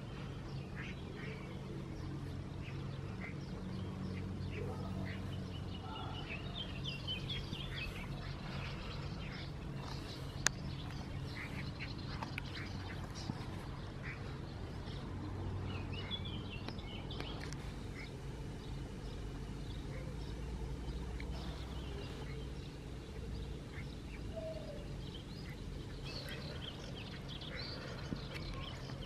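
Birds calling and chirping in short, scattered bursts over a steady low hum, with one sharp click partway through.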